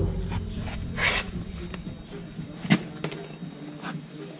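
Handling noises at a tractor's three-point hitch: a scrape about a second in and a sharp knock a little past the middle, over a steady low hum.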